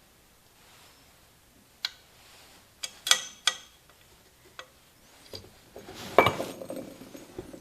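Metal tools and engine parts clinking and tapping on a workbench: a few separate sharp clicks, then a louder clattering rattle about six seconds in.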